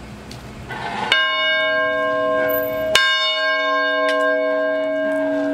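Large church bell swung by its lever arm, striking twice about two seconds apart, each stroke ringing on in a long steady tone.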